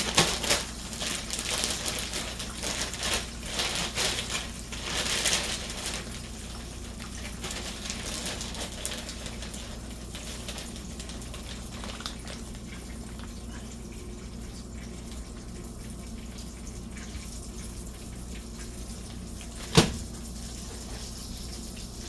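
Pork chop frying in oil in a pan, a steady sizzling hiss. The first few seconds hold stronger crackling bursts, and there is one sharp knock near the end.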